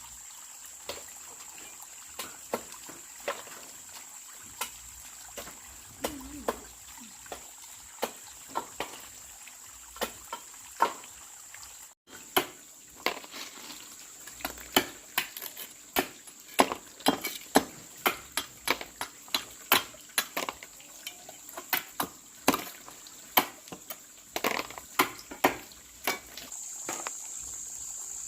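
Irregular sharp knocks of a knife chopping on a cutting board, a stroke every second or so at first, then quicker and more frequent after about twelve seconds. A steady high insect chirring runs underneath.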